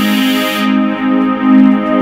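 Live rock cover band playing an instrumental passage: keyboard chords held over a low note repeating about three times a second.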